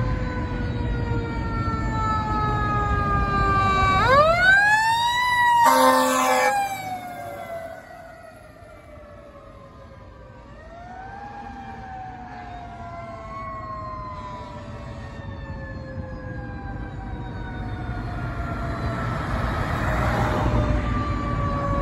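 Fire engine siren coasting down in pitch, wound up sharply about 4 s in, then falling slowly again, with a short horn blast around 6 s and another smaller wind-up near 11 s. Engine and road rumble grow louder toward the end as the truck approaches.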